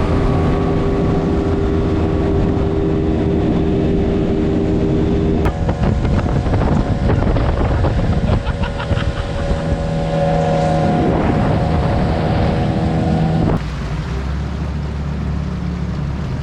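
Outboard motor pushing a small aluminium tinny along at a steady speed, with water rushing past and wind on the microphone. The engine's pitch changes abruptly twice, about five seconds in and again near the end.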